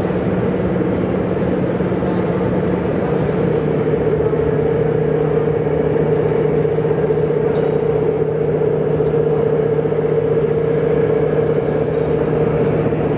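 A steady hum over the general noise of a busy hall, with faint voices in it; the hum drops slightly in pitch about three seconds in.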